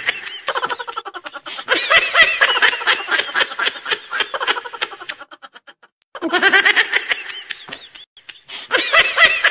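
A man laughing hard: long runs of rapid, high-pitched laughs that break off briefly a little over halfway through, then start again.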